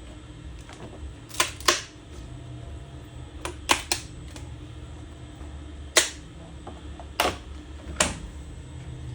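3D printer running with a steady low hum, with about seven sharp clicks over it, some in quick pairs, the loudest about six seconds in.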